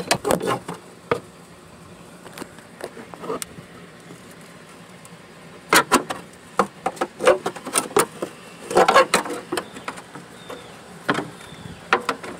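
Flat prying tool working at the edge of a plastic fuel pump access cover held down by strong adhesive, with irregular clusters of sharp clicks and cracks as the cover is levered up and the glue lets go.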